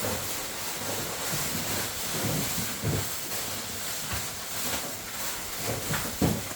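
Wind buffeting the microphone outdoors: a steady rushing noise with irregular low rumbling gusts.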